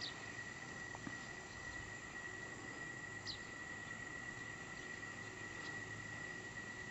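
Faint steady high-pitched insect trill over quiet outdoor background noise.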